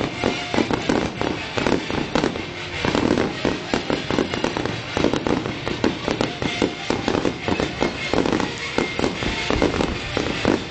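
Fireworks display going off in quick succession: a dense, irregular stream of bangs and crackles from many shells bursting.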